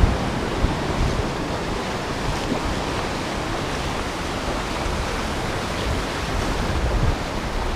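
Ocean surf washing in over the shallows, a steady, even rush, with a low rumble of wind on the microphone underneath.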